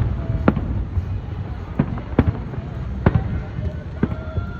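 Fireworks bursting: about five sharp bangs at irregular intervals over a steady low rumble of more distant bursts.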